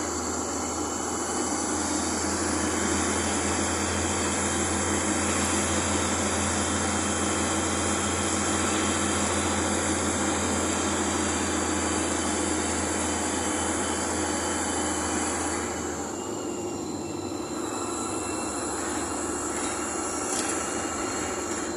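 Bus ride heard from inside the cabin: steady engine and road drone with a high-pitched whine over it. The low rumble falls away about 16 seconds in.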